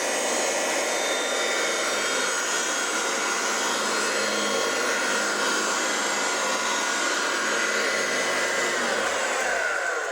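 Vintage Kirby Sanitronic VII upright vacuum cleaner running steadily at full speed, a loud rushing motor-and-fan noise with a high whine. Near the end its pitch starts to fall as the motor is switched off and spins down.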